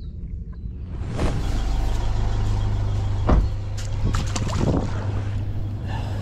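Boat engine running with a steady low hum that gets louder about a second in, with several sharp knocks over it.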